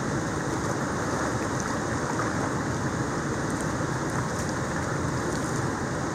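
Steady rushing of water pouring through a dam's spillway gates and churning the river below, an even wash of noise with no change.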